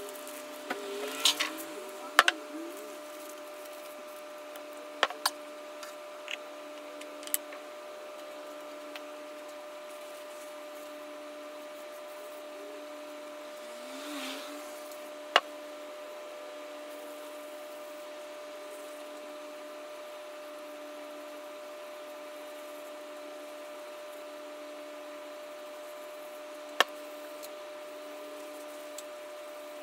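Scattered sharp knocks and taps as a sledge hammer head and other objects are handled and set down on a table: several in the first few seconds, then single ones now and then. A brief rustle comes about halfway through, over a steady background hum.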